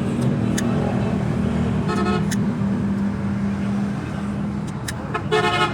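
A motorcycle horn sounding two short toots, one about two seconds in and a slightly longer one near the end, as the newly fitted horn is tested. Under them runs a steady low hum that fades after about four seconds.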